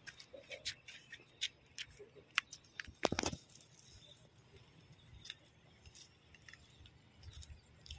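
Scattered small clicks and crunches of feet and handling on a stony riverbank while a handline is readied for a cast, with one louder scuffing burst about three seconds in.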